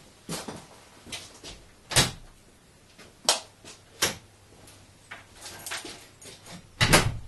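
Footsteps and knocks of a wooden plank door being opened, then a loud double thud near the end as the door is pulled shut.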